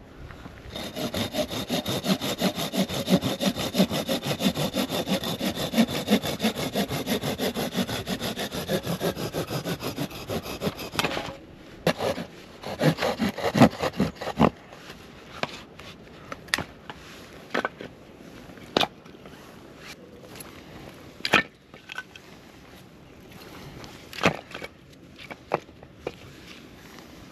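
Hand saw cutting through a wooden stick with fast, even back-and-forth strokes for about ten seconds. The sawing stops and is followed by a scattering of sharp cracks and knocks of wood.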